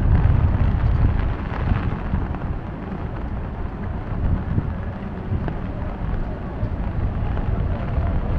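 Wind buffeting the microphone in gusts, heaviest about the first second, over a steady hiss of rain.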